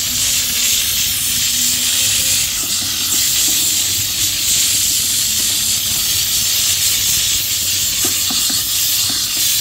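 A steam cleaner's nozzle jetting high-pressure steam with a loud, steady hiss.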